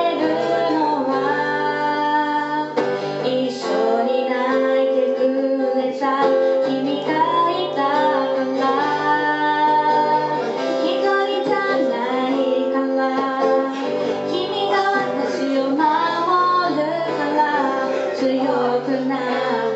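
A woman singing a slow melody into a microphone, holding long notes, accompanied by a man playing acoustic guitar, performed live.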